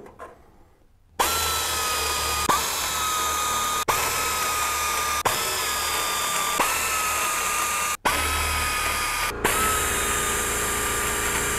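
Sioux Tools pneumatic air drill spinning at high speed with a steady whine, drilling rivet holes through an aluminium wing rib and bracket. It starts about a second in and stops and restarts briefly several times.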